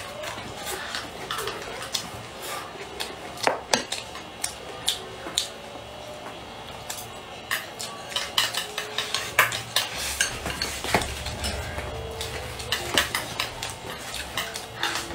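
Eating utensils clicking and scraping against bowls: wooden chopsticks on a ceramic rice bowl and a spoon in a stainless-steel bowl, in many short, irregular clicks.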